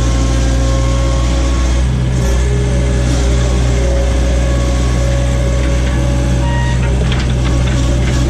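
John Deere skid steer's diesel engine running steadily, with a steady whine over the engine note.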